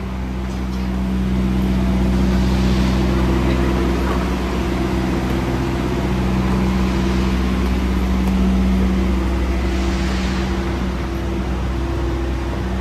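Steady engine hum with a few held low tones that keep their pitch, running at an even speed. A hiss swells briefly about two seconds in and again near ten seconds.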